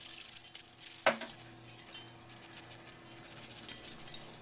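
Sandpaper rasping against a small toy bicycle wheel, then a single sharp clink about a second in; after that, fainter rubbing from the sanding stick.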